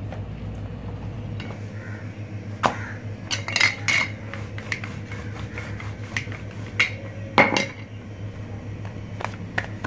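Wooden rolling pin rolling out a stuffed paratha on a stone counter, with a few sharp knocks and clinks as it strikes the surface, the loudest about a third of the way in and again about three-quarters through, over a steady low hum.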